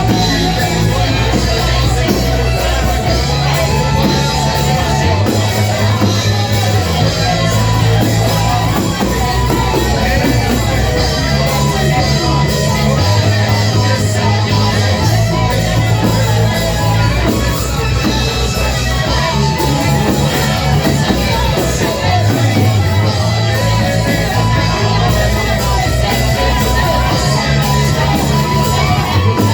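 Loud live church worship music: a full band with a heavy bass line that changes chords every few seconds, with singing voices.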